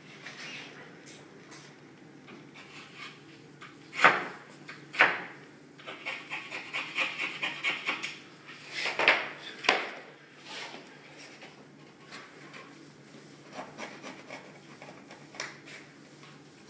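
Hand tool working the edge of a hardwood floor board: sharp knocks about four and five seconds in, then a quick run of short rasping strokes, then another knock. A little wood is being trimmed off the board so that it fits without damaging the neighbouring board.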